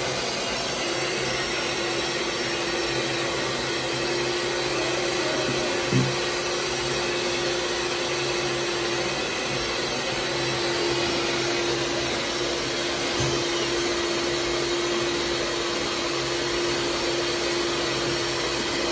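Steady whirring noise of a motor or fan with a constant hum running under it, and a single knock about six seconds in.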